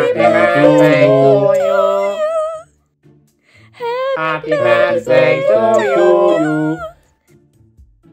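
A group of voices singing a song together, in two phrases of about three seconds each with a short pause between.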